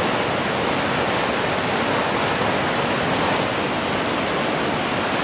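River water pouring over a low dam spillway into whitewater below: a loud, steady rushing roar.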